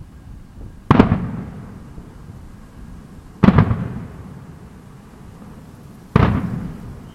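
Fireworks display shells bursting: three loud booms a little under three seconds apart, each trailing off in a low rumble that fades over about a second.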